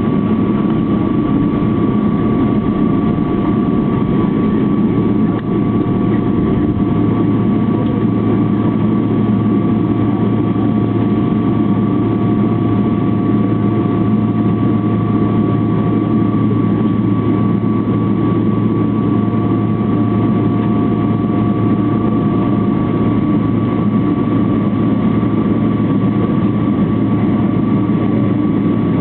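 Boeing 777-300ER's GE90 jet engines running steadily, heard from inside the cabin: a loud, even drone with a deep hum and two faint steady whining tones above it.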